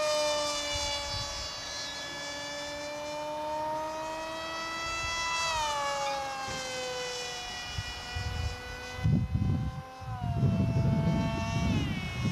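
Multiplex FunJet RC model jet flying past overhead: the high, buzzing whine of its electric motor and pusher propeller, with a pitch that drops sharply twice, about halfway through and again near the end. Irregular low rumbles come in during the last few seconds and are louder than the whine.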